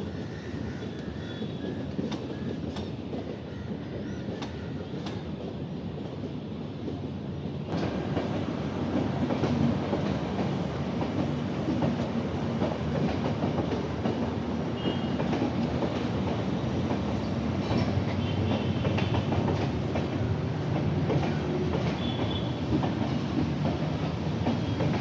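Motorcycle ride noise: the engine running with road and wind rumble while riding in traffic, getting suddenly louder about eight seconds in.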